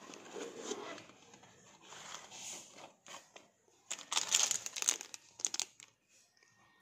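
Cardboard box being opened and handled, then a clear plastic packaging bag crinkling in a run of sharp crackles as the wrapped parts and cable are lifted out, starting about four seconds in.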